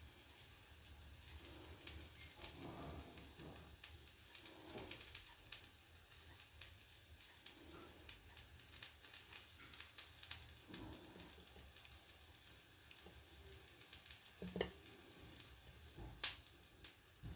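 Faint sizzling of food frying in a pan, with a couple of sharp clicks near the end.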